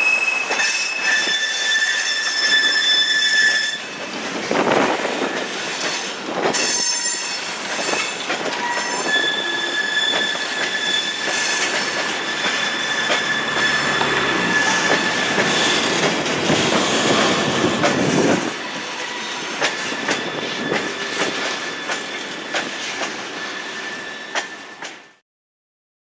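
Rail vehicle running along track, its wheels squealing in several high steady tones over the running noise, with clicking from the rails. The sound cuts off abruptly near the end.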